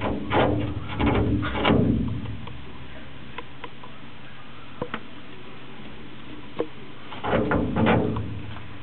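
A prairie dog scrabbling at a clear pane with its clawed front paws: quick rubbing and scraping strokes, in a flurry at the start and another about seven seconds in, with a few light clicks of claws on the pane in between.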